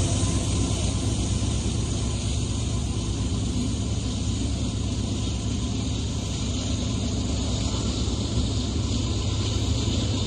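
Steady low rumble and hiss of a freight train carrying on just after its locomotive has passed, with no distinct knocks or horn.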